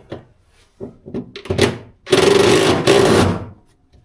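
A few clicks as a socket goes onto a seat bolt, then a cordless power tool runs in one burst of about two seconds, working the tight seat-mounting bolt loose.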